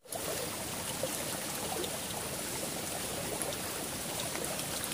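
Small stream flowing steadily along a narrow earth channel, an even rushing and trickling of water.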